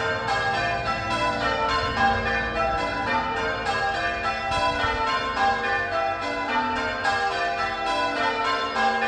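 A ring of six church bells, the 8 cwt tenor in the key of G, being rung one after another in an unbroken run of strikes, about three to four a second, each bell ringing on under the next. The bells are odd struck, so the striking is uneven.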